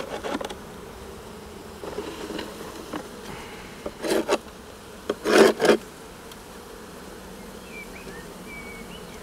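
Honeybees buzzing in a steady hum around an opened hive. About four and five and a half seconds in come two short scraping noises as wooden frames are shifted with a hive tool.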